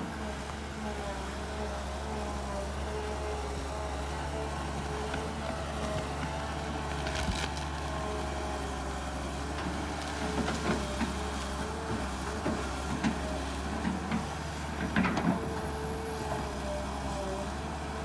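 Kobelco SK200 excavator running at work: a steady engine drone with a wavering whine above it and a few sharp clunks, about 7, 10 and 15 seconds in.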